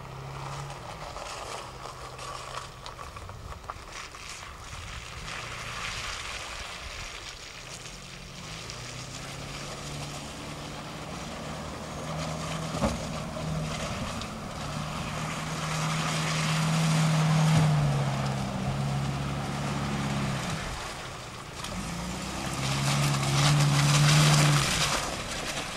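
Small four-wheel-drive SUV engine pulling uphill through deep mud, its revs rising and falling as it works, loudest about two-thirds of the way in and again near the end. Wind buffets the microphone throughout.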